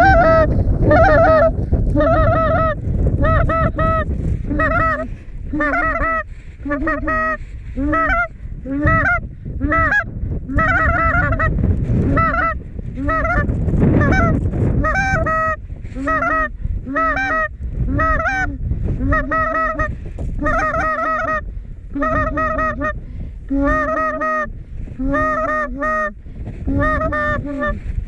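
Goose honks repeated about once a second, each a two-note honk breaking from low to high, with wind buffeting the microphone underneath.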